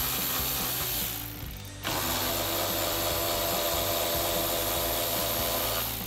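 Cordless electric ratchet with an 11 mm socket spinning nuts off the mirror mounting studs. It runs, stops briefly about a second in, then runs steadily again for about four seconds.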